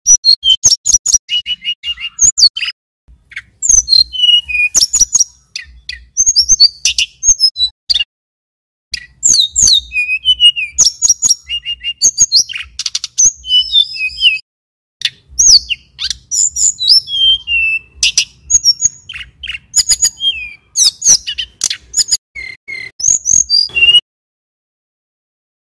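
Male tledekan gunung (sulingan gunung, a small flycatcher) singing loudly in quick runs of high, sliding whistled and trilled notes. Several short pauses break the song, and it stops shortly before the end.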